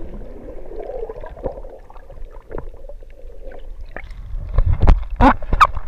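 Shallow seawater sloshing and gurgling around a camera held at or below the surface, muffled and low. Several sharp clicks and pops come in the last second.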